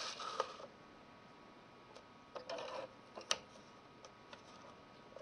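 A 5.25-inch floppy disk sliding into the slot of a Commodore 1541-II disk drive. About two and a half seconds in comes a short scrape, then a single sharp click as the drive's door lever is turned shut, followed by a few faint ticks.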